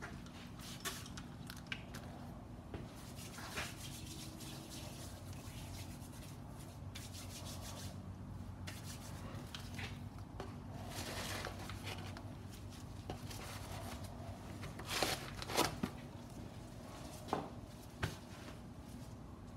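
Faint rustling, rubbing and scattered clicks of objects being handled, over a steady low hum, with a few sharper clicks in the last few seconds.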